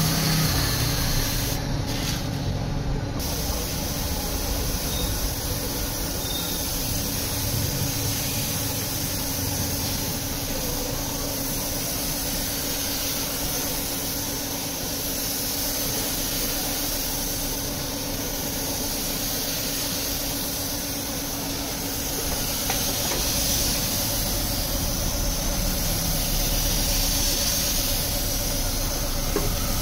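Gravity-feed paint spray gun hissing steadily as it sprays paint, with a steady low hum underneath.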